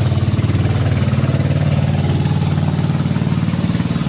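Motorized outrigger pump boat's engine running steadily as the boat passes close by, a low, rapidly pulsing engine note.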